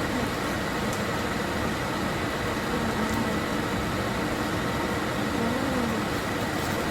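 Steady, even mechanical noise with a faint constant hum, with faint voices in the background.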